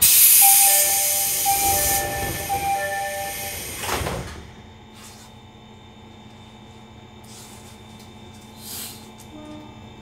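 Door chime on a Fujisan Fumoto Railway 6000-series train (ex-JR East 205 series): a two-tone chime repeating three times over the hiss of the air-operated door engines, then the sliding doors thud shut about four seconds in. A low steady hum from the standing train follows.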